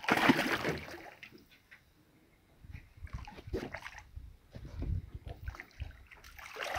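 A hooked fish thrashing at the water's surface beside a boat. There is a loud splash right at the start, then a short lull, then irregular splashing and sloshing with dull thuds.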